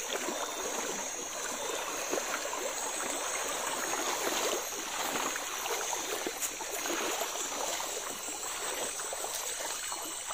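Shallow river water splashing and trickling, with small irregular splashes, as of people wading through the stream.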